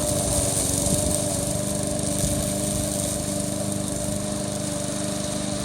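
Lawn mower engine running steadily at constant speed while the remote-controlled mower cuts grass.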